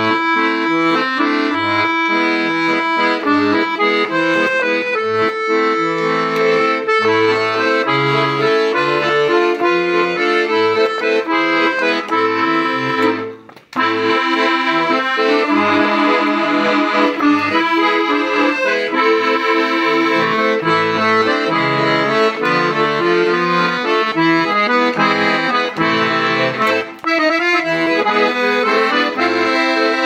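Hohner Concerto III piano accordion playing a tune, with the melody on the treble keys over a bass-button accompaniment. There is a brief break in the music about halfway through.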